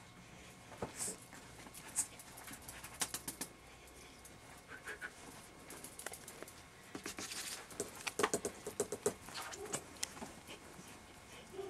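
Puppies moving about on soft bedding: fabric rustling and small scratching and pawing sounds. The noise comes in irregular flurries, busiest around three seconds in and again in the second half.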